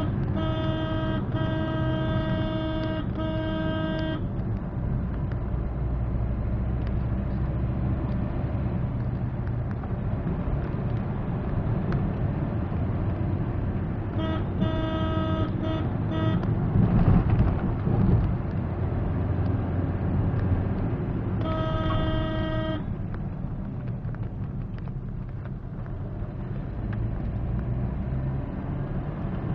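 Engine and road noise from inside the cabin of a Maruti Suzuki Swift on the move. A horn sounds in a string of short toots at the start and again about 14 seconds in, then once more, a little longer, about 22 seconds in.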